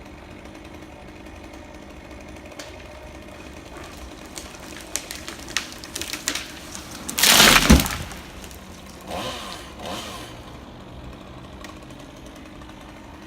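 A chainsaw runs up in a dead tree as the cut top cracks in a run of sharp snaps and breaks free; about seven seconds in, the treetop hits the ground with one loud crash, the loudest sound of all. Two short rising revs of the saw follow.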